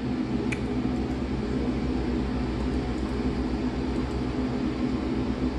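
A 28-inch commercial shop fan running at full speed: a steady, even rushing noise with a low hum underneath.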